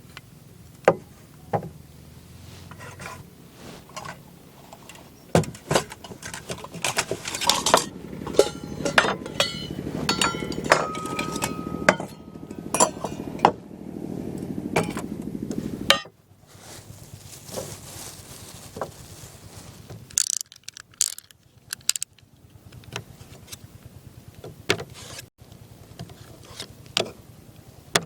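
Irregular clicks, knocks and light metallic clinks of equipment being handled, busiest in the middle stretch, where a short ringing tone is heard.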